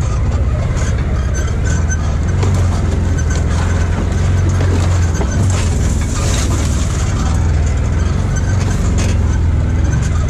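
Side-by-side UTV engine running steadily as the machine drives over a rough trail, with scattered clicks and knocks throughout.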